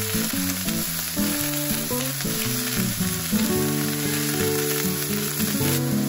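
Vegetables and sliced pork belly sizzling and frying in an enamelled cast-iron braiser as they are stirred with a wooden spatula, with background music underneath. The sizzle cuts off near the end.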